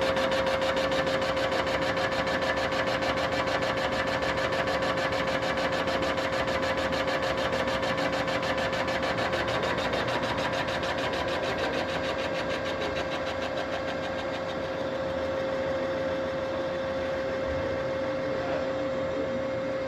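CNC line boring machine running, its boring bar cutting the main bearing bores of a Mopar 512 stroker block: a steady high-pitched tone over a fast, even machining rattle. The rattle eases off about two-thirds of the way through while the tone carries on.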